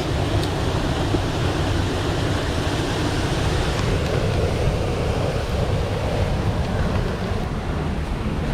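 Mountain stream water rushing steadily, the flow swollen after rain.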